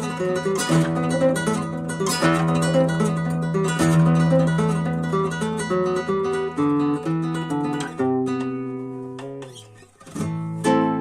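Valencia CG30 R+ classical guitar with Hannabach HT500 nylon strings played solo: a flowing passage of plucked notes over a held bass note. The playing dies away about nine to ten seconds in, then resumes strongly just before the end.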